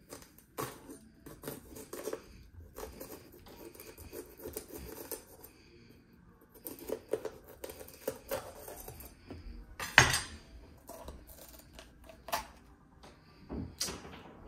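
Kitchen knife on a cutting board while bell peppers are cut: irregular clicks and knocks, with one loud knock about ten seconds in.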